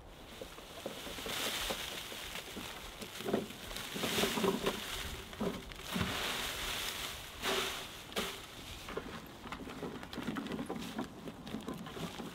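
Dry pine bark peelings rustling as they are tipped and shaken out of a wooden wheelbarrow onto a pile, in several loud bursts over the first two-thirds, then softer rustling.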